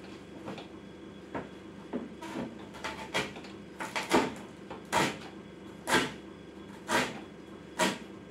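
Kitchen cleaver chopping outer cabbage leaves fine on a wooden cutting board. Light, irregular taps at first, then from about four seconds in, heavier, even chops about once a second.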